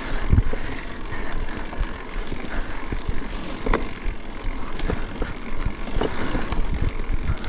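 Fat-tyre mountain bike riding over a rough trail: steady wind rumble on the camera's microphone, with tyre noise and scattered knocks and rattles as the bike goes over bumps.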